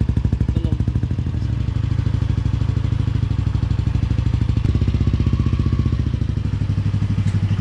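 Yamaha NMAX 155 single-cylinder scooter engine idling through a newly fitted JVT Pipe V3 adjustable aftermarket exhaust, a steady, rapid exhaust pulse, with the idle shifting slightly a little past halfway.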